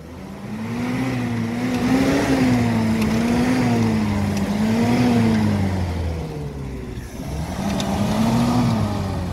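UAZ-469 off-roader's engine revving in repeated surges, its pitch rising and falling about every second and a half as it struggles to get over a snow berm. The revving eases off about seven seconds in, then picks up again.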